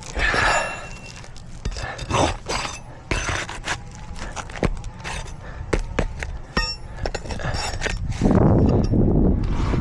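A steel flat bar working roofing nails out from under asphalt shingles: scattered sharp metallic clicks and scrapes. Near the end comes a louder, rougher stretch of low rustling noise.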